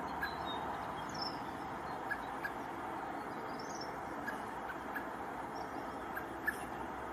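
Male common blackbird giving short, sharp call notes at irregular intervals, about ten in all, as it calls for its fledgling. A couple of thin, higher chirps come about a second in and about four seconds in, over a steady background hiss.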